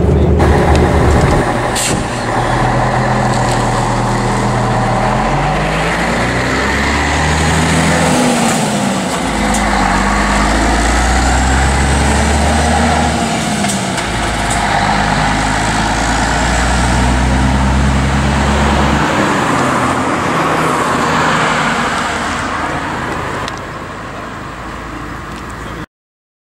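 Diesel engine of an Ikarus EAG 395 coach on a Scania chassis, heard on board while driving. Its pitch rises and falls repeatedly as the load changes, with a single sharp click about two seconds in. The sound drops in level near the end and then cuts off abruptly.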